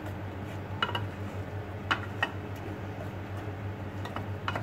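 A utensil stirring green curry paste into coconut milk in a metal pot, clinking against the pot a few times over a low steady hum.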